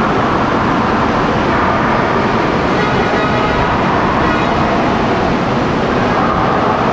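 CRH380B high-speed electric trainset standing at the station platform with its onboard equipment running: a steady, loud rushing noise that does not change.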